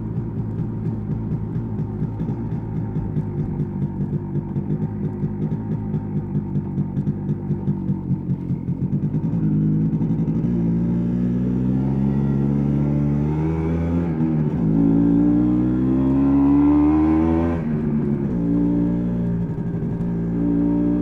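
1986 MZ ETZ 250's single-cylinder two-stroke engine, heard onboard: it runs at low revs with an uneven pulsing for about nine seconds, then pulls away, rising in pitch in steps with short breaks at the gear changes, before running steadily near the end.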